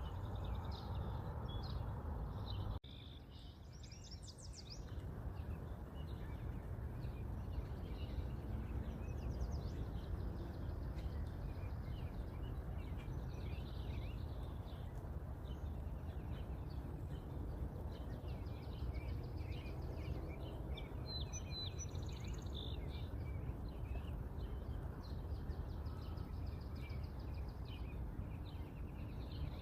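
Many birds chirping and trilling over a steady low background rumble of outdoor noise. The level dips suddenly a little under three seconds in, then builds back.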